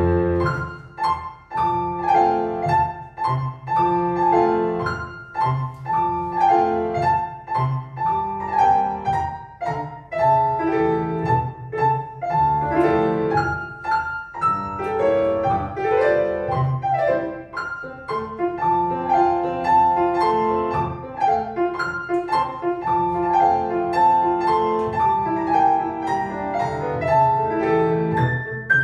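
Solo piano playing classical ballet-class accompaniment for barre exercises, a steady metred piece with clearly struck notes.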